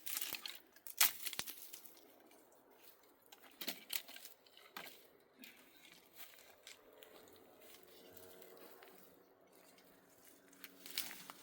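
Intermittent rustling and tearing sounds in short, sharp bursts: several in the first seconds, a few around four to five seconds, and one more near the end, with quiet stretches between.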